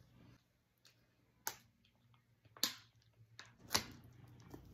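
Three short, sharp clicks about a second apart, with a fainter one before them, over a faint steady low hum.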